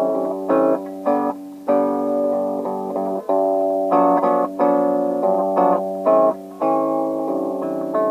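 Guitar played in G Lydian mode, tuned down about a whole step: picked notes and chords in short phrases, each left to ring, with brief breaks between them.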